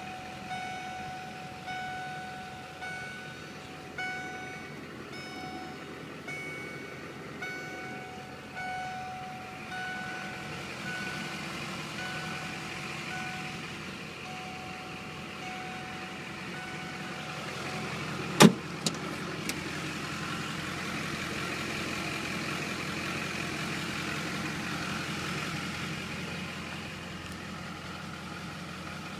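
Duramax turbo-diesel V8 idling in a Hummer H1, heard from inside the cab. Over it a dashboard warning chime repeats about once a second and stops after about seventeen seconds. A single sharp knock comes a second or so later, then a steadier hiss.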